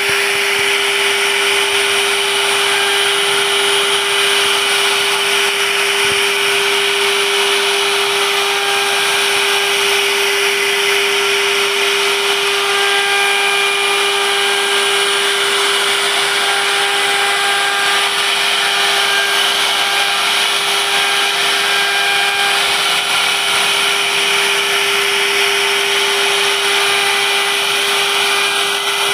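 1325 CNC wood router spindle running at a steady pitch while its bit carves a relief pattern into a wooden panel, with a constant hiss of cutting.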